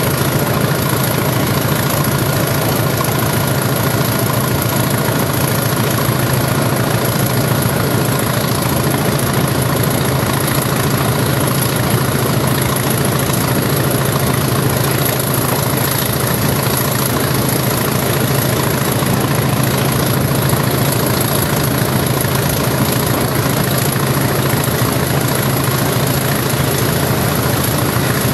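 English Electric Class 20 diesel locomotive's turbocharged V8 engine running hard under power, a steady heavy thrash heard from the cab side as the locomotive runs along the line, with no let-up.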